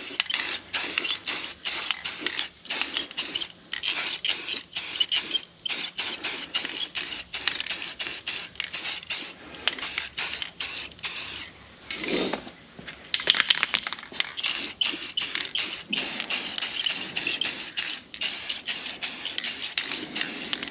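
Rust-Oleum aerosol spray-paint can spraying a coat of wheel paint in many short hissing bursts, about two a second with brief gaps between them. A quick run of clicks interrupts it a little past the middle.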